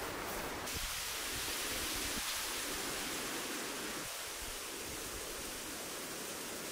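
Steady rushing hiss of outdoor ambience with no distinct events; the high part of the hiss grows stronger just under a second in.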